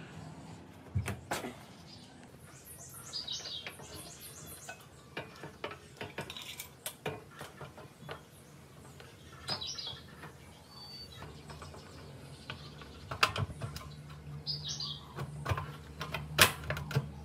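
Scattered metal clinks and taps of small parts being handled and set down, over a low steady hum. Three short high chirps come a few seconds apart.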